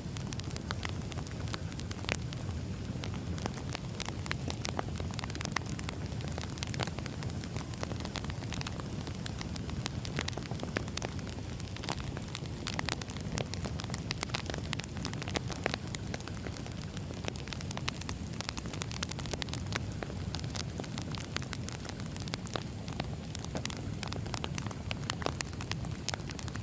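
Firewood crackling as it burns: frequent sharp pops and snaps at uneven intervals over a steady low rumble.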